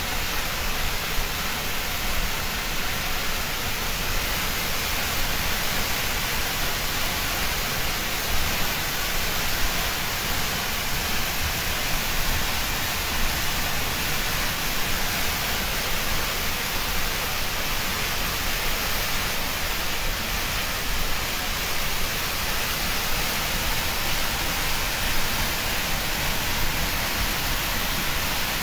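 Water rushing out of a dam's open sluice valve in a powerful jet and crashing into the river below, a steady, unbroken roar.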